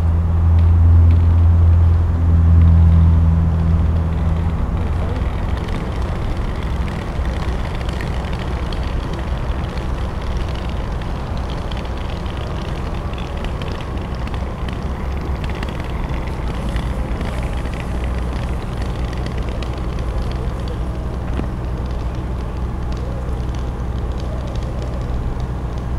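Fire engines' diesel engines running steadily, a low rumble, with a louder engine hum in the first four or five seconds.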